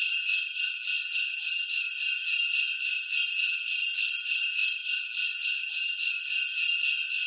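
Jingle bells shaken in a quick, steady rhythm, bright and high-pitched with nothing low beneath them.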